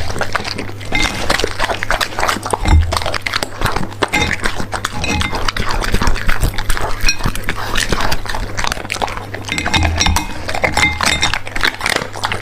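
A dog chewing and crunching its food of raw meat and bone-in treats, with irregular wet crunches and clinks against the plate, and a few low thuds.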